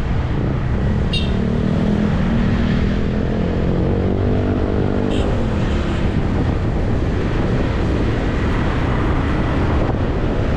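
Motor vehicle on the move: steady engine and road noise, with an engine's pitch rising and then falling between about one and five seconds in.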